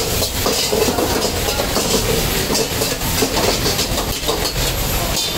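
Mutton sizzling in a steel karahi wok over a gas burner, with a metal ladle scraping and knocking against the wok in a rapid, uneven clatter. Under it runs the steady rush of the high gas flame.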